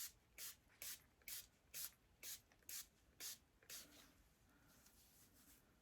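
Hand-held spray bottle squirting in quick, even pumps, about two a second, nine in all, then stopping about four seconds in: misting the wig's curls to wet them.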